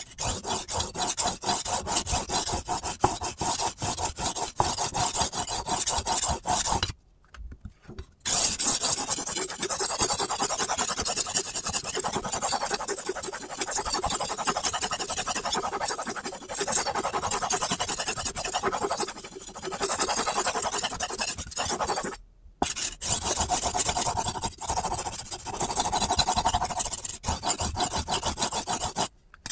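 Steel knife blade rasping across a sharpening stone in rapid back-and-forth strokes, the blade held at a fixed angle by a clamp-on angle guide. The strokes pause briefly three times.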